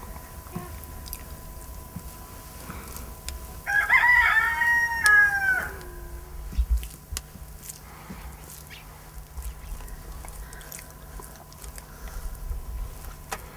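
A rooster crows once, about four seconds in. The call lasts roughly two seconds and drops in pitch at the end. Faint scattered clicks lie under it.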